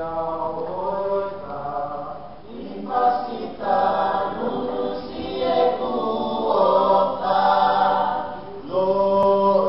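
Tongan choir singing together in long held phrases, with short pauses between phrases about two and a half seconds in and again near the end.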